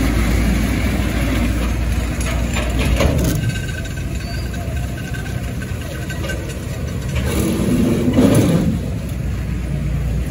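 Heavy diesel truck engine running with a steady low rumble, revving up briefly about eight seconds in as the truck moves off.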